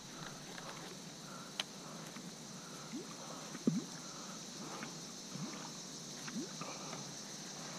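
Steady high-pitched drone of insects, with a few faint sharp clicks and soft sounds about 1.5 and 3.5 seconds in.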